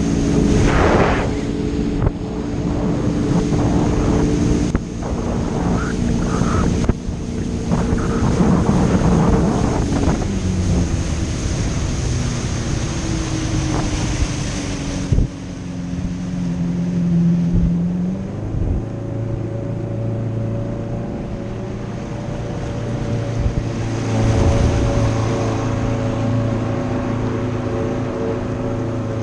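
A motor engine running with its pitch shifting up and down several times, over a steady wash of wind and water noise.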